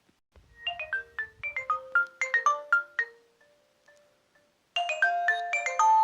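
Nokia mobile phone ringtone: a quick melody of short marimba-like notes that plays for a few seconds, falls away to a few faint notes, then a louder ringtone melody starts near the end.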